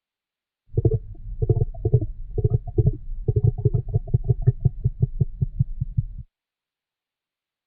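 Stomach growling: a run of low gurgling pulses, uneven at first, then settling into a quick even rattle of about five a second. It starts and stops abruptly.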